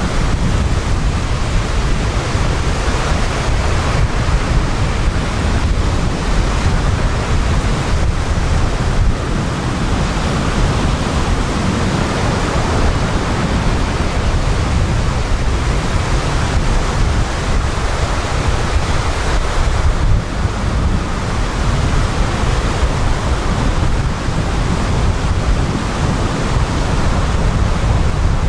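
Sea surf breaking and washing up a sand-and-pebble beach in a continuous wash, with a steady low rumble of wind on the microphone.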